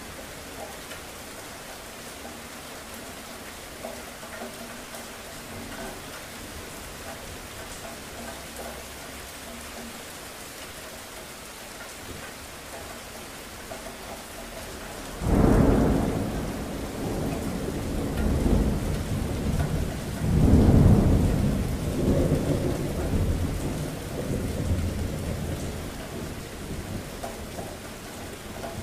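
Steady rain falling, with a roll of thunder about halfway through: it breaks in suddenly and loud, swells again a few seconds later, then rumbles away slowly back under the rain.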